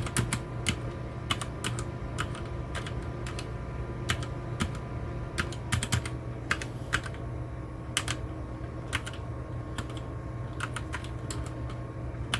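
Typing on a MageGee MK-Box 60% mechanical keyboard with red switches: irregular key clicks, a few strokes a second, as the keys are pressed in a steady run.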